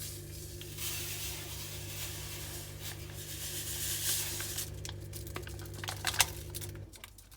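Descaling and cleaning powder poured from its packet into a front-loading washing machine drum: a few seconds of steady hiss, then crinkling of the packet and clicks, with one sharp tap near the end.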